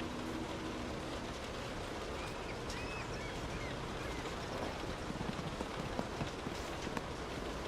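Steady rain heard from indoors, a constant patter with a few sharper drops standing out near the end.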